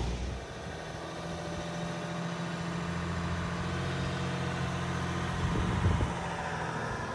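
Jeep Wrangler Rubicon towing an off-road trailer creeping past over a dirt track, its engine running steadily at low speed, with a brief thump near the end.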